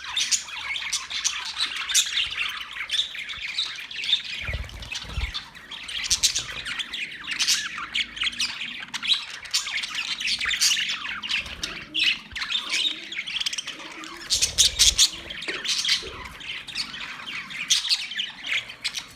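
Many small birds chirping at once, a dense continuous chatter of short overlapping calls, with a couple of brief low thumps, about four and a half and fifteen seconds in.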